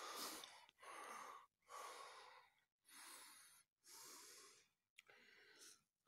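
A person trudging through deep snow, with soft noisy sounds about once a second in a steady walking rhythm.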